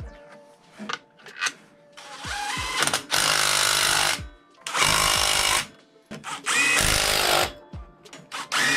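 Cordless impact wrench run in three bursts of one to two seconds each on the drive clutch bolt of a Polaris Sportsman 450, tightening it as the clutch job is finished. A few light clicks of the socket come before the first burst.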